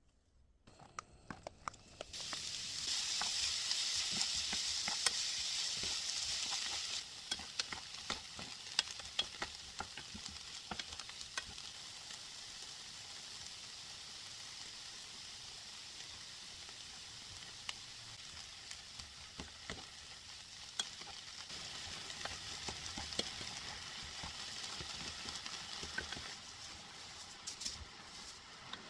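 Chopped onions sizzling in oil in a nonstick frying pan over medium heat, stirred with a wooden spatula that scrapes and taps against the pan. The sizzle starts about two seconds in, is loudest for the next five seconds, then settles to a steadier, quieter frying.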